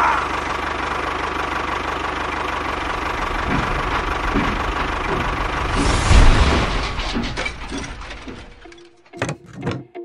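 Tractor engine running steadily with a low chugging. It grows louder and hissier about six seconds in, then fades away, and a few short knocks follow near the end.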